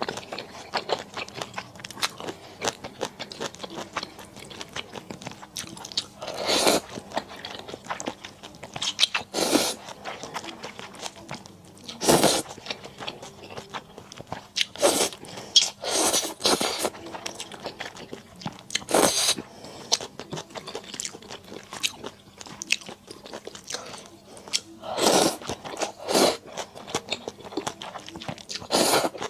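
Close-miked eating sounds: a person chewing and crunching food, with about ten louder half-second bursts of mouth noise a few seconds apart.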